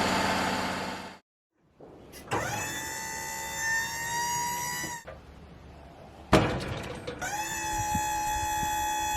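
Wood-Mizer LT35 portable sawmill: loud steady machine running that stops abruptly about a second in, then a motor on the mill whining in two runs, each rising in pitch as it spins up and then holding steady, with a sharp knock as the second run starts.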